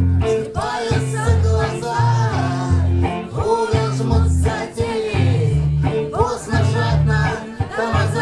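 Live rock band playing a song: a man singing over guitar and a bass line that steps between notes, with drums keeping a steady beat.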